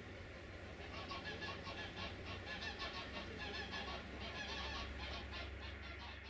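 A flock of birds calling, many short calls several a second, with a low steady rumble underneath.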